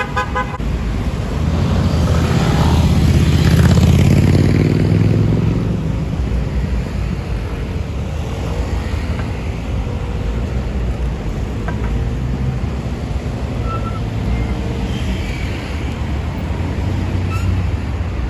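Road traffic on a city street: a vehicle passes close by, loudest a few seconds in, then a steady low traffic rumble continues.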